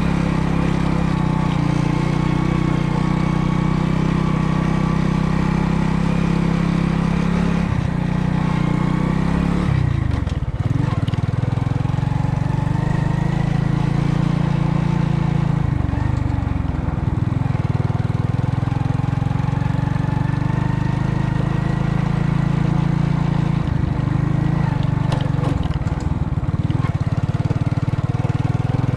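Motor vehicle engine running while on the move. Its pitch drops and comes back up about four times.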